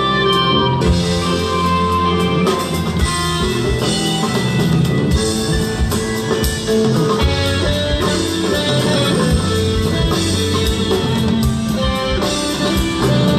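Rock band playing live without singing: electric guitar over a drum kit, with bass and held keyboard notes filling out the sound.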